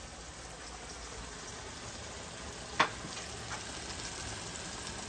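Curry masala with onion and tomato sizzling in hot oil in a large aluminium pot, a steady sizzle that grows a little louder. A sharp knock comes about three seconds in, with a lighter one soon after.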